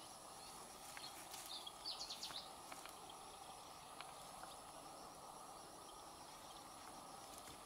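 Faint outdoor background: a steady insect-like hum and a high steady whine, with a short run of high chirps about two seconds in and a few faint clicks.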